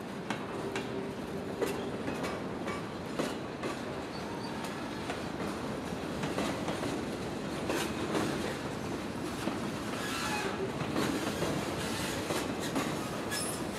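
Freight train rolling past, its wheels clicking steadily over the rail joints, with a few short wheel squeals about ten seconds in.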